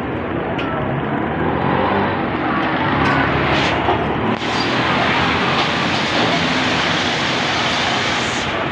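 Steady street noise, a continuous rushing with background voices mixed in.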